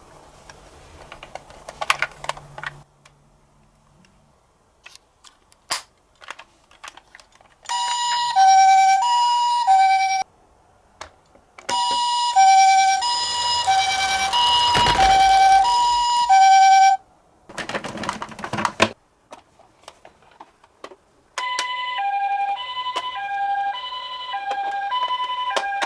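Toy ambulance minicar's electronic siren playing a two-tone hi-lo wail, switching back and forth between two pitches, in three separate runs. Between the runs come clicks and short bursts of rattling noise.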